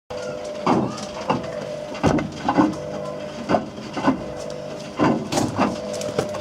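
Whirlpool WWDC 7210/1 washing machine drum turning with a steady motor hum, as hard objects tumble inside and knock and clatter at irregular intervals.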